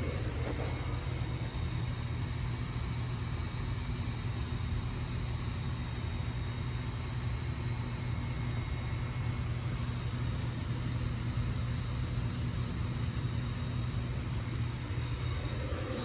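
Steady low hum and rushing air of a running room cooling appliance, with a faint high whine.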